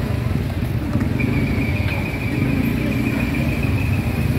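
Steady low rumble of motorcycle and car engines running on the street. From about a second in, a steady high-pitched whistle sounds over it.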